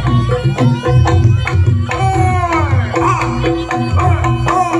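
Javanese jaranan ensemble playing: hand-drum strokes and pitched gong notes in a steady repeating beat. About two seconds in, a high melody line enters, bending and wavering over the beat.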